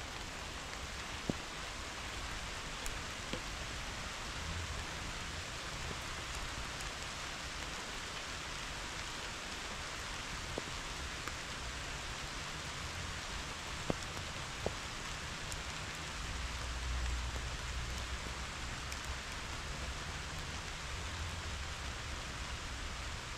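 Steady summer rain falling on meadow grasses and wildflowers, an even hiss with a few sharper single drop ticks now and then. A low rumble swells briefly about two thirds of the way through.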